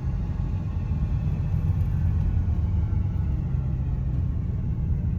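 Drivetrain and road noise inside the cab of a moving 2001 Dodge Dakota R/T: a steady low rumble with a faint whine that slowly rises in pitch. The whine follows road speed rather than engine RPM and is loudest with overdrive engaged; the owner believes it comes from the transmission.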